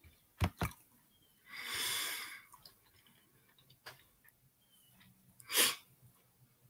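A man breathing: a long breath out about two seconds in and a short, sharp breath near the end, with two sharp clicks near the start.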